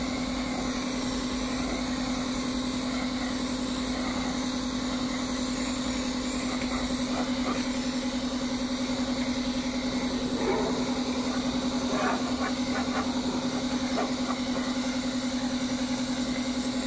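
A motor or small engine running steadily at constant speed: an even hum with a fine, rapid pulse. A few faint knocks come in the second half.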